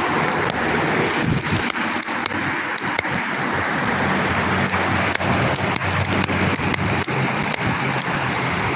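Road traffic: cars driving past, a steady hiss of tyres and engines with a low hum underneath, and scattered light clicks throughout.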